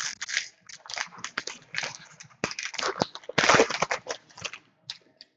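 2014-15 SP Authentic hockey card pack's foil wrapper crinkling and tearing as the pack is opened and the cards handled. It is a run of irregular crackles and rustles, and the longest and loudest comes a little past three seconds in.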